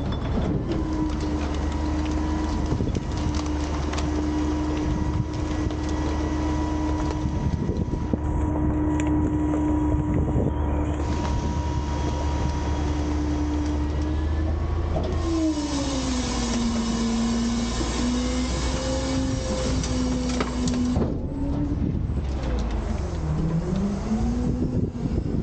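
Autocar/Heil front-loader garbage truck's engine and hydraulics running while the packer blade cycles through the hopper, compacting the load. The engine's pitch holds steady for about 15 seconds, then drops, wavers, dips and rises again near the end.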